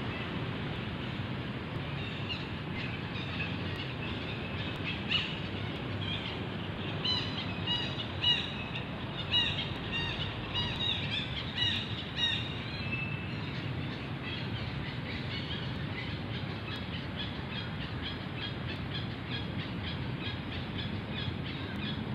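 Outdoor forest ambience: a steady low background rumble with a run of short, high chirping calls, densest and loudest between about 7 and 12 seconds in.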